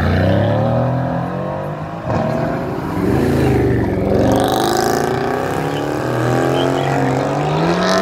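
Sports car engines accelerating away, their pitch rising and dropping several times as they rev through the gears, with a deep rumble that fades out about four seconds in.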